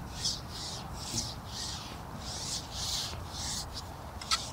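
Carbon fishing pole being shipped out, sliding in rasping, hissing strokes about twice a second, with one sharp click near the end.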